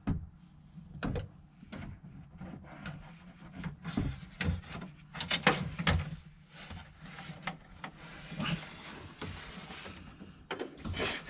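Handling noises as a remote drain plug cable is fed through a hole into a fiberglass boat compartment: irregular knocks, scrapes and rustles of the cable and hands against the hull, a dozen or so sharp ones scattered through.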